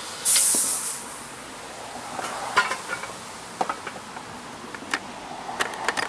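A short, loud hiss about a third of a second in, followed by scattered light knocks and clinks as the tipped-over lawn mower is handled and set on a steel jack stand.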